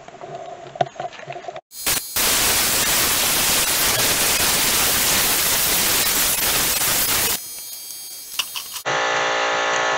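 Compressed-air blow gun blasting air through the radiator fins to clean them out, a loud, steady hiss. A short burst comes just under two seconds in, then the air runs for about five seconds and cuts off suddenly.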